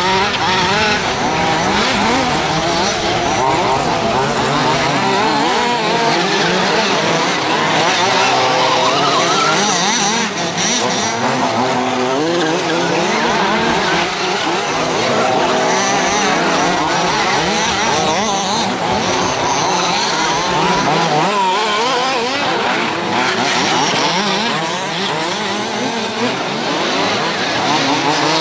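Several large-scale 1:5 RC off-road buggies racing, their small petrol two-stroke engines overlapping and revving up and down continuously as the cars accelerate and brake around the dirt track.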